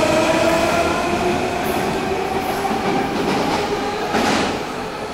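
Washington Metro six-car train pulling out of the station: a motor whine of several tones creeps up in pitch as it speeds up, over a rumble of wheels on the rails, fading as the train moves away. There is a brief rush of noise about four seconds in.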